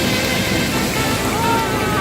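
Steady rushing wash of sea surf, with faint melodic tones over it.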